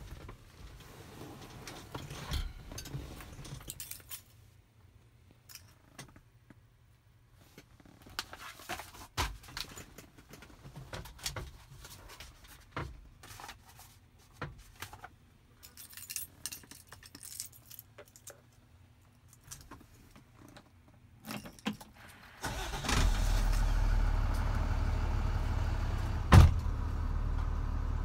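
Scattered clicks and rattles in the cab, then about 22 seconds in the box truck's diesel engine starts and settles into a steady low idle. One sharp knock sounds a few seconds after the start.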